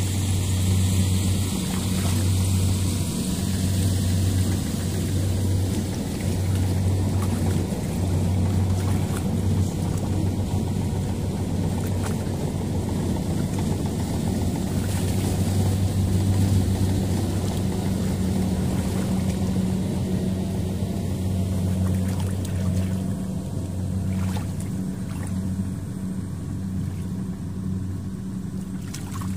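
A small engine running steadily at an even speed, with a constant low hum.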